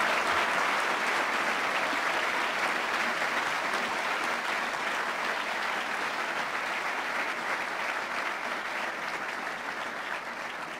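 Audience applauding steadily after a lecture, easing off slightly toward the end.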